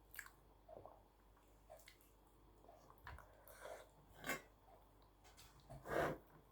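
Close-up eating sounds: soft, wet chewing of rice and potato-eggplant curry, with scattered small mouth clicks and two louder brief smacks about four and six seconds in.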